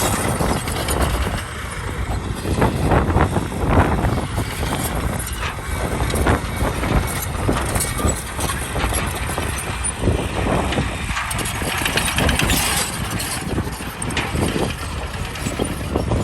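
Heavy earth-moving machinery running, a diesel engine rumble mixed with irregular clatter.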